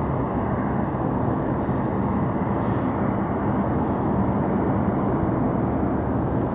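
Hunter UAV's twin propeller engines droning steadily as it comes in to land, a constant low hum under a wash of engine and air noise.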